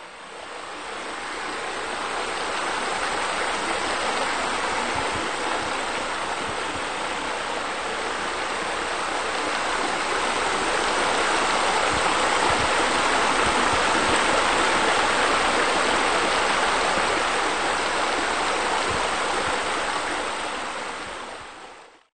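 Steady rush of running water, like a stream or a spa spillover. It fades in at the start and fades out near the end.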